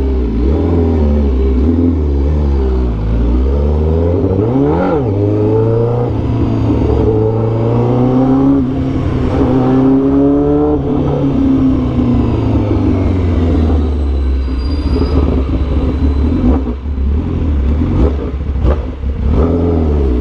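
Honda CBR1000RR-R Fireblade's inline-four engine through an SC Project CRT titanium exhaust with cat-delete headers, running in first gear. The revs jump and drop sharply about five seconds in, climb again for a few seconds as it pulls away, then fall back to a low, steady run.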